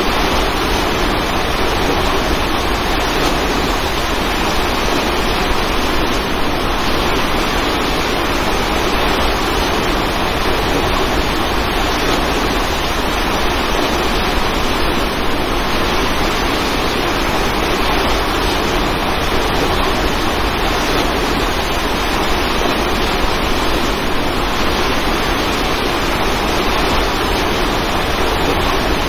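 Waterfall rushing, a steady, even roar of falling water with no breaks.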